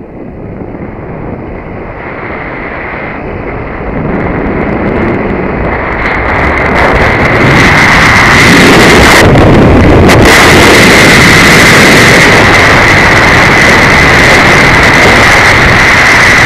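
Wind rushing over the microphone of a camera carried by a rider speeding down a long zip line, growing louder over the first eight seconds or so as speed builds and then staying loud. A steady high whine runs beneath it.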